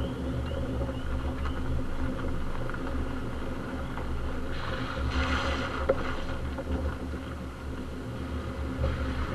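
Subaru Crosstrek's flat-four engine and tyres making a steady low rumble as it drives slowly over a dirt and gravel forest road. The tyre noise swells briefly about halfway through, and there is a single sharp click just before the six-second mark.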